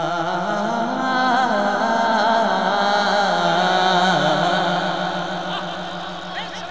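A man's voice singing a long, drawn-out melismatic line of a devotional manqabat. The held note rises about half a second in and wavers, then steps down twice and fades over the last couple of seconds.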